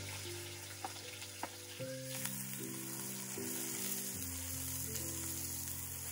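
Chopped onions sizzling in hot oil in a cast-iron cauldron and being stirred with a wooden spoon, with a few light taps. The sizzle gets louder about two seconds in.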